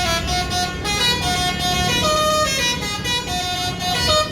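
Multi-tone 'telolet' musical horn on an ALS intercity bus, playing a tune of steady horn notes that change pitch every third to half second, over a low rumble.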